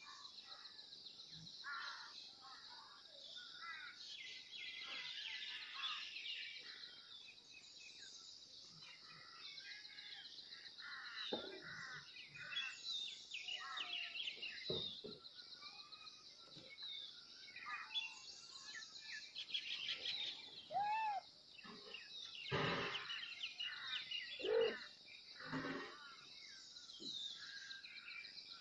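Birds chirping and singing over a steady high-pitched buzz, with a few louder short cries in the last third.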